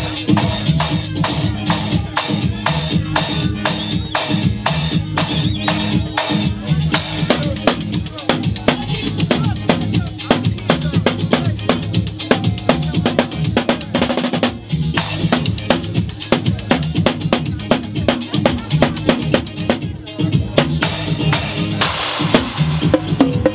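Live drum kit played with sticks: rapid, steady strokes on the drums and cymbals, over music with a steady bass line. The strokes break off briefly twice.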